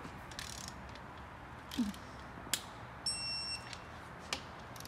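Digital torque wrench tightening ARP main-cap studs: a few light clicks, then about three seconds in a steady high beep lasting just over half a second, the wrench signalling that the set torque has been reached.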